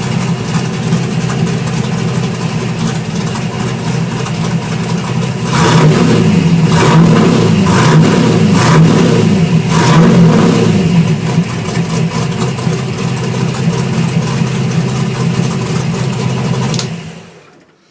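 Holden 253 V8 running in a VC Commodore, blipped a few times about five to eleven seconds in and settling back to idle, then cut off near the end.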